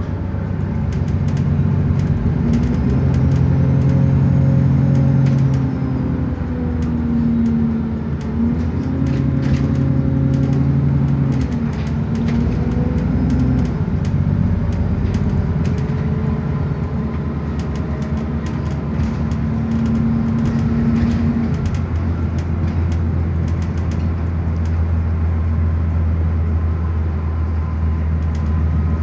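Bus engine and drivetrain heard from inside the passenger saloon while the bus is under way. The engine pitch rises and falls twice in the first half as the bus pulls away and changes speed, then settles into a steady low drone. Interior fittings rattle and click throughout.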